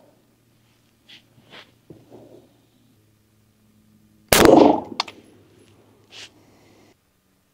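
A single shot from an AR-style semi-automatic rifle with an X2 Development Group barrel, about four seconds in, loud with a short ringing tail. A sharp click follows less than a second later, with a few faint handling clicks before the shot.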